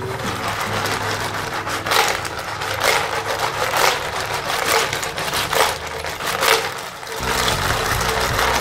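Cockles in their shells clattering and scraping against a nonstick frying pan as they are stir-fried and tossed, a sharp rattle about once a second over a steady sizzle.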